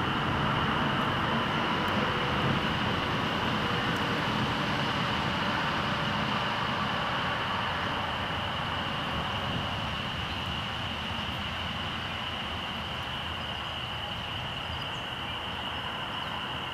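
Steady outdoor background noise: a continuous low rumble with a steady high-pitched hum over it, easing off slightly near the end.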